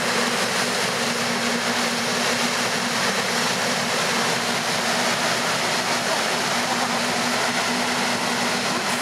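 Stern paddle wheels of a river cruise ship churning the water: a steady rushing splash, with a steady low hum underneath.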